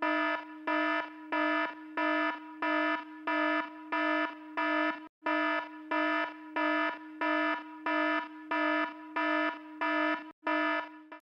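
Electronic alarm beeping in a steady repeating rhythm, about three beeps every two seconds, each beep a buzzy tone at one fixed pitch. The beeping breaks off briefly twice and stops shortly before the end.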